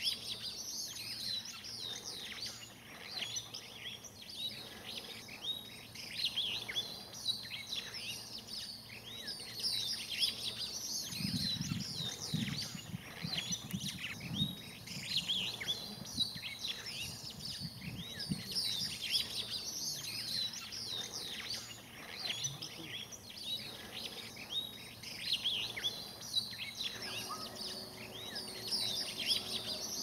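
Many wild birds chirping and calling at once, a dense chorus of short, quick, mostly falling notes that never stops. Low rumbles come in for a few seconds about a third of the way in.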